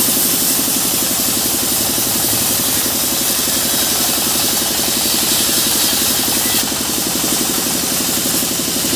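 Sawmill saw cutting a mahogany slab as it is fed through, a strong high hiss over the machine's steady, rapid throb. The hiss changes about six and a half seconds in.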